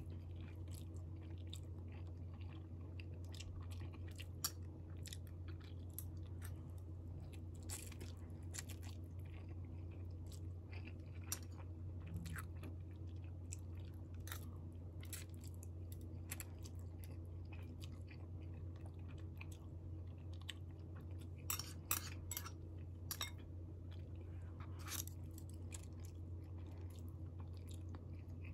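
Close-up chewing of spicy instant noodles, eaten from chopsticks, with many wet mouth clicks and a few sharper ones bunched about three-quarters of the way in, over a steady low hum.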